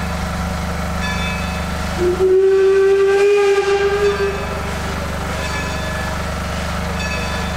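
Steam locomotive whistle, most likely that of Baldwin No. 26, sounds one steady blast of about two and a half seconds starting about two seconds in. It plays over a steady low hum from the train.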